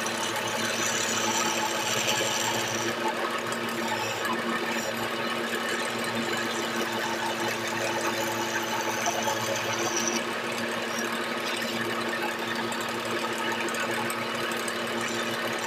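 Wood lathe running with a steady motor hum while a flat chisel is held against the spinning gamari-wood stair baluster, scraping it smooth in stretches.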